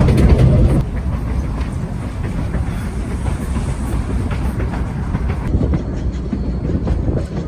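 Narrow-gauge passenger train rolling along the track: a steady rumble and clatter of wheels on rails, louder for about the first second and then even.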